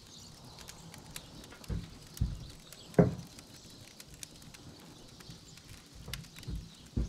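Wood fire crackling in an open fire pit with small sharp pops, and a few dull knocks on wood, the sharpest about three seconds in, as a mug is handled and set down on a wooden stool.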